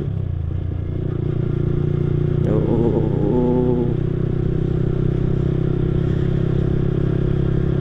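Yamaha R15 V3's 155 cc single-cylinder engine running at a steady cruising speed through a custom Akrapovic exhaust.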